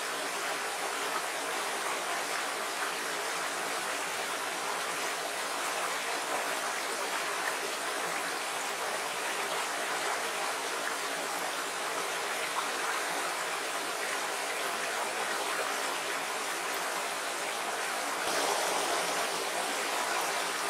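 Small rocky stream running over stones in shallow riffles: a steady, even rush of water, a little louder from about eighteen seconds in.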